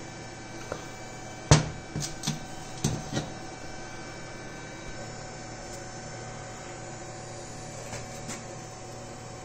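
Steady workshop hum with a quick run of sharp metallic knocks and clicks about a second and a half in, the first the loudest, as a hand-held steel lathe chuck body is turned and handled. A few fainter clicks come near the end.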